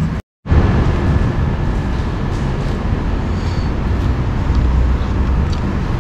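Steady low rumble and hiss of background noise, like road traffic, broken by a brief drop to silence a fraction of a second in.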